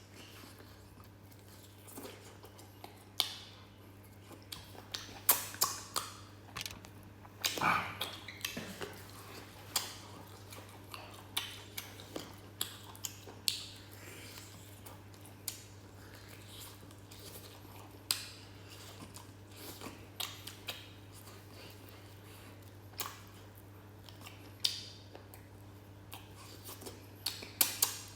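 Close-miked eating of spicy duck wing mids: scattered sharp crunches, bites and mouth clicks, over a steady low hum.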